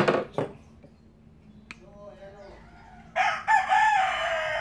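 Rooster crowing once, loud and drawn out, about three seconds in and lasting about a second and a half, with a fainter call a little before it. A single sharp click comes just before the middle.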